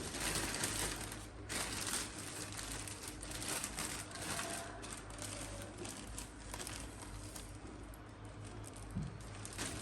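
Irregular soft crinkling and rustling over a steady low hum.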